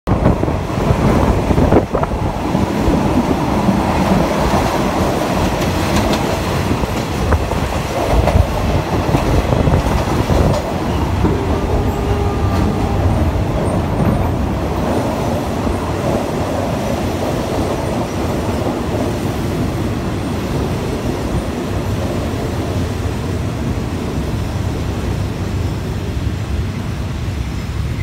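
Passenger train running, heard from inside an open-windowed carriage: a steady rumble and clatter of the wheels on the track. It eases gradually as the train slows into a station.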